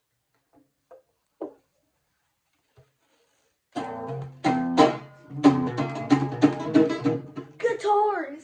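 Guitar strummed in chords, starting about four seconds in after a few faint taps, with loud strokes in a loose rhythm.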